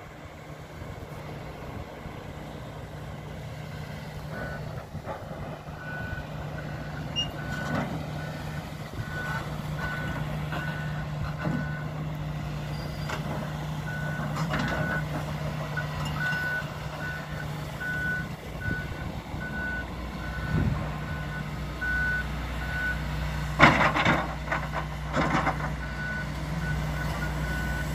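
Hitachi hydraulic excavator's diesel engine running steadily while its warning alarm beeps over and over, a little under two beeps a second, starting a few seconds in. A couple of loud knocks come near the end.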